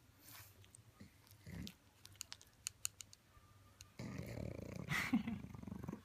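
A black pug's breathing and mouth noises, with a run of small quick clicks about two seconds in. From about four seconds in comes a louder stretch of rustling as the fleece blanket and a wooden back scratcher are moved.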